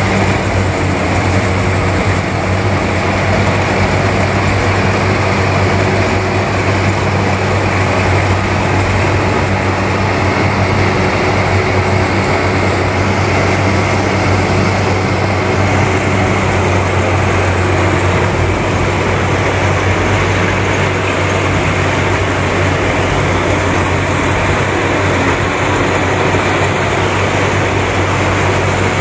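Rice combine harvester running steadily while cutting and threshing the crop: a constant engine drone with a low hum under the machinery noise.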